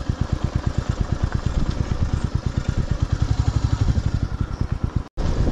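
Royal Enfield Meteor 350's single-cylinder engine running at low revs with a fast, even thumping beat. It cuts off abruptly near the end.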